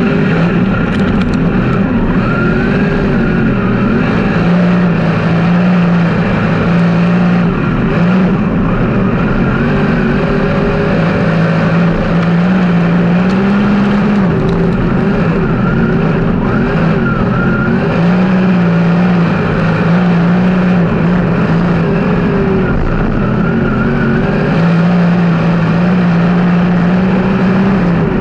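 A field of 360 sprint cars' V8 engines running as the cars circle the dirt oval, a steady loud drone whose pitch rises and falls gently every few seconds.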